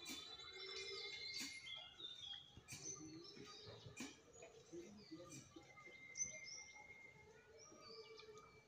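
Faint bird chirps and short whistles, some gliding in pitch, with a few soft taps and one sharper click about six seconds in.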